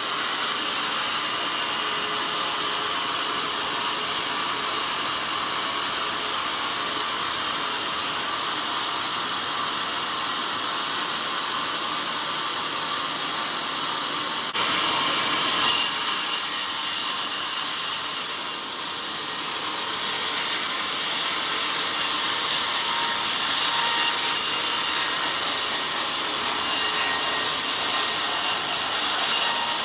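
Sawmill band saw cutting through a log: a steady, noisy sawing sound. About halfway through it jumps abruptly louder, with a sharp peak a second later, then grows louder again a few seconds on and holds.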